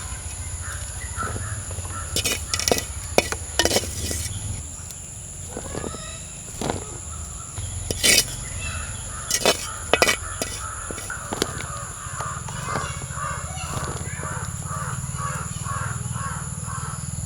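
Birds calling, with a quick run of repeated calls of about three a second in the second half, over a steady high whine. Several sharp knocks come in between.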